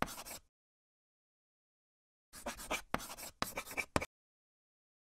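Chalk scratching on a blackboard in quick writing strokes: a short spell that stops about half a second in, and a longer one of nearly two seconds starting a little over two seconds in.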